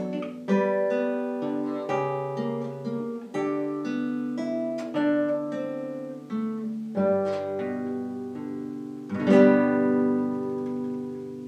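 Classical nylon-string guitar played solo, a melody of single plucked notes over bass notes. About nine seconds in comes a loud chord, which is left to ring and slowly fade.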